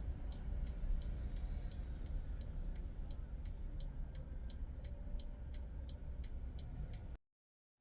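Car turn-signal indicator clicking steadily, about three ticks a second, for a right turn, over the low rumble of the car in motion. The sound cuts out abruptly near the end.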